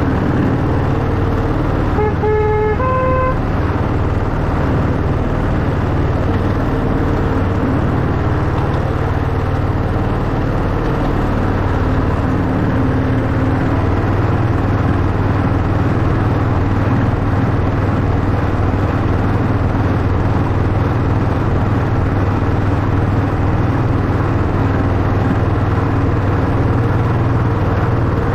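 Miniature Class 91 replica locomotive running with a steady low drone. About two seconds in its horn sounds briefly, two notes, the second higher.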